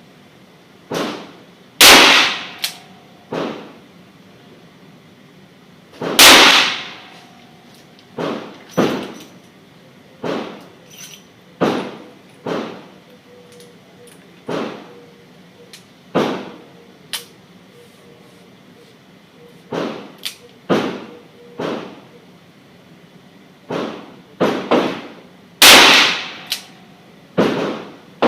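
Handgun shots fired with .38 Special handloads: three loud, close shots about 2, 6 and 26 seconds in. Many fainter gunshots come at irregular spacing between them.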